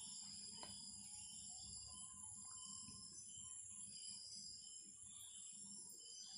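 Near silence: a faint, steady high-pitched background drone, with one faint click under a second in.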